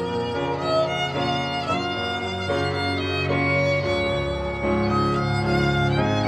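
Background music led by a violin melody over a steady low accompaniment.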